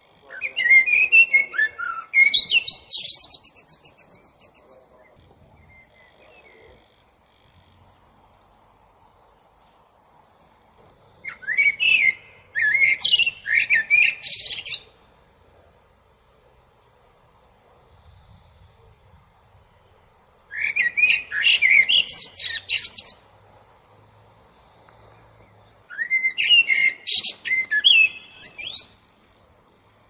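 Male Eurasian blackbird singing. There are four separate phrases, each a few seconds long, that open with lower fluting notes and run up into high twittering, with pauses of several seconds between them.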